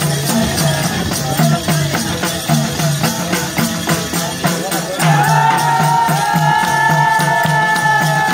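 Live Nepali folk music for a Maruni dance: madal hand drums beat a steady, driving rhythm under a bright, busy patter of jingling percussion. About five seconds in, a long high note joins and is held.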